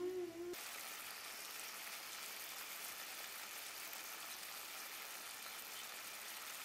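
Chicken thighs frying in marinade in a stainless steel pan, a steady sizzle. A brief vocal sound comes at the very start.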